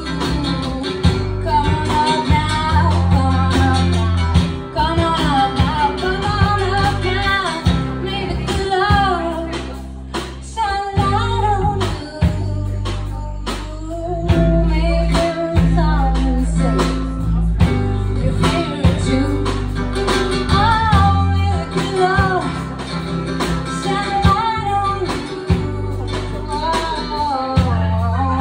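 Live acoustic music: a woman singing and strumming an acoustic guitar, amplified through a PA. Deep bass notes that shift every second or two run underneath.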